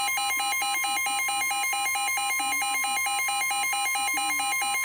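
NOAA Weather Radio's steady 1050 Hz warning alarm tone, heard together with a weather alert radio's own alarm, a fast beeping that flips between two pitches many times a second. Together they signal an incoming warning about to be read out.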